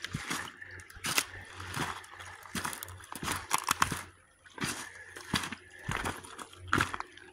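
Footsteps crunching on a creek bank of loose gravel and stones, a step every half second or so, pausing briefly about four seconds in.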